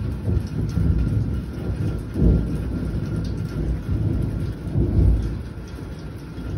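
Thunder rumbling over steady rain, with louder swells about two seconds in and again about five seconds in.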